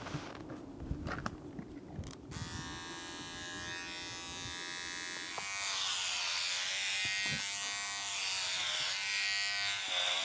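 Handling clicks, then electric hair clippers switch on about two seconds in and run with a steady buzz. From about six seconds in the blades are cutting through long hair, adding a hiss over the buzz.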